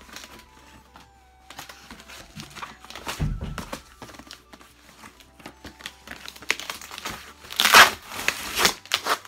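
Cardboard shipping box being ripped apart by hand: scraping, crinkling and tearing of the cardboard, with a low thump about three seconds in and the loudest rips near the end.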